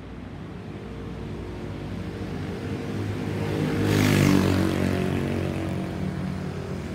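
Boeing 737-800 flying over, its CFM56-7B turbofan engines swelling in volume to a peak with a brief hissing rush about four seconds in, then fading as it passes.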